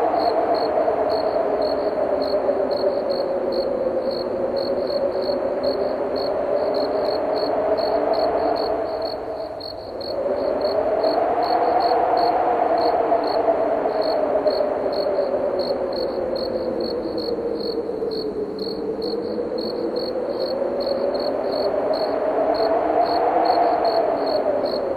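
Wind blowing with a hollow, moaning tone that slowly rises and falls in pitch and dies away briefly about ten seconds in. Crickets chirp in a steady, even rhythm of two or three chirps a second.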